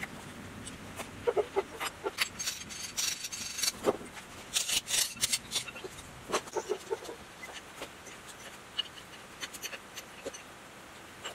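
Hand tools clinking and scraping on the cast-iron parts of an old 20-horsepower diesel engine as it is taken apart, with a spanner on its nuts and loose metal parts knocking together. The sound comes as scattered sharp clinks, thickest a couple of seconds in and again around five seconds.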